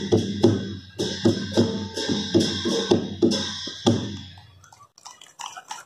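Drum and cymbal music: evenly spaced strokes about two to three a second, each cymbal stroke ringing on. It fades out about four seconds in, leaving a few faint clicks.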